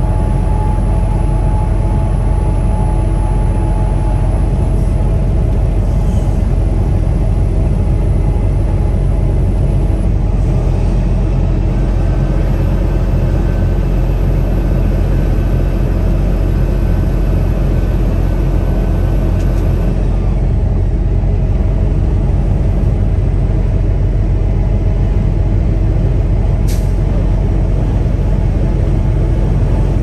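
Peterbilt 579 semi-truck driving: a steady, loud low engine drone with road noise.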